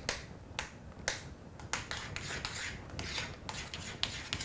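A metal utensil mixing mascarpone and whipped cream in a glass bowl to get the lumps out. It clicks sharply against the glass about twice a second, irregularly, with a soft scraping through the cream between the clicks.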